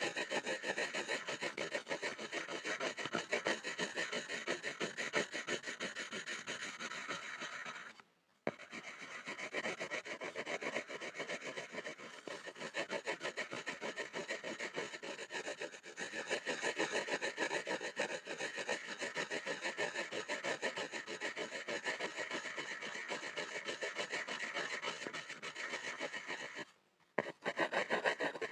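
Pencil scribbling rapidly on a board: continuous fast scratching strokes, stopping briefly twice, once about a third of the way in and once near the end.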